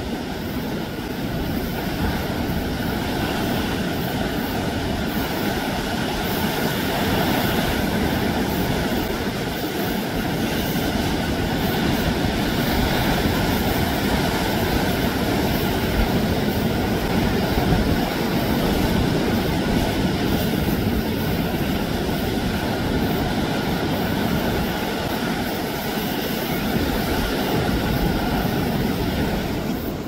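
Heavy surf breaking continuously over rocks: a steady roar of waves and churning white water, swelling a little in the middle. The sea is rough from a typhoon's swell.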